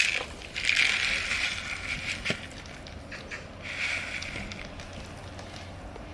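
Coarse granular potting soil pouring out of a plastic pot onto a porous lava rock planting: a grainy hiss in two pours, the first lasting about a second and a half, the second shorter about four seconds in.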